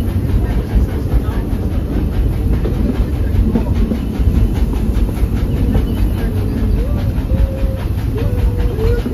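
Narrow-gauge steam train rolling along, heard from aboard: a steady, loud rumble of wheels and cars on the track with a faint rhythmic clatter.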